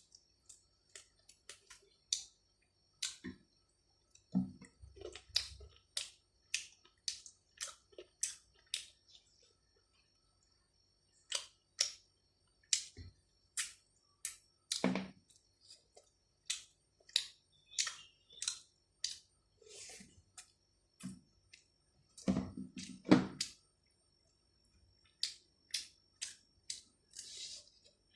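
Close-up eating sounds: irregular wet clicks and smacks of a mouth chewing rice and chicken, a few a second with short gaps. A cluster of louder, duller knocks comes about two-thirds of the way through.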